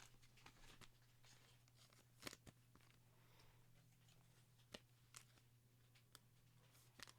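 Near silence: faint clicks and slides of trading cards being handled and flipped through a stack, a few scattered ticks over a faint steady hum.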